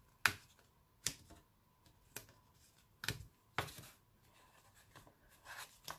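Cardstock and paper being handled and pressed down on a cutting mat: about five sharp taps and clicks, with a soft paper rustle near the end.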